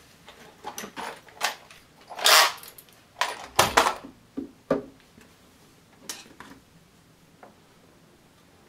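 Small metal door-latch parts and tools clinking and knocking as they are handled, in irregular single knocks with a short scraping rattle about two seconds in and a few louder clacks around four seconds. It goes quiet over the last couple of seconds.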